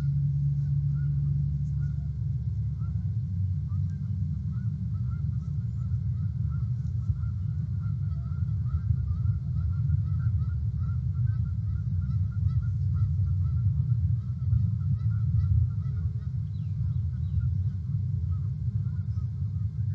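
A distant flock of birds calling in a long, rapid string, several calls a second, with the calls thinning out near the end, over a steady low rumble.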